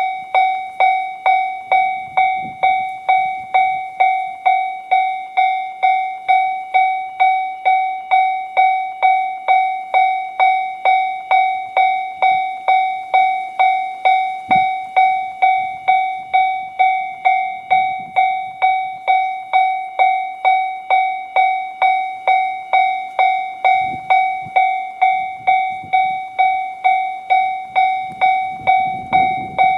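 Japanese level-crossing warning bell in the JR-standard electronic tone, ringing steadily at about two strokes a second, each stroke a bright clang that dies away quickly. Faint low rumbles come and go beneath it.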